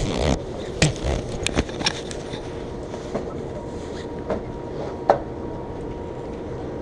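Shopping cart being pushed, its wheels and wire basket rattling, with a cluster of knocks and clunks in the first two seconds and a few single clicks after.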